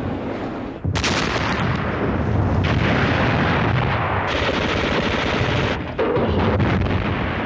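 Dense battle gunfire with machine-gun fire, the sound changing abruptly about a second in and again near six seconds.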